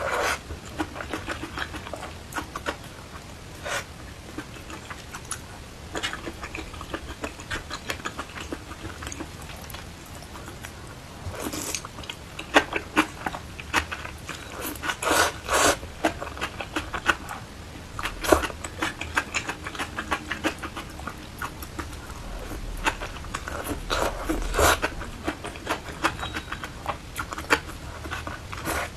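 Close-miked eating of rice noodles: irregular chewing and mouth sounds with small clicks, and a few louder noisy moments about twelve, fifteen and twenty-four seconds in.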